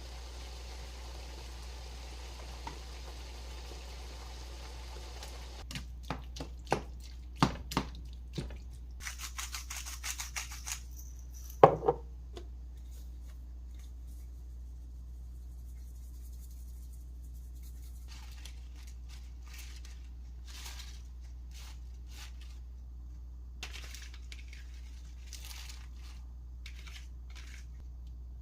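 Kitchen cooking sounds: food sizzling in a pan for about six seconds until it cuts off, then scattered clicks and knocks of utensils and dishes, a brief rustle, and one loud knock about twelve seconds in.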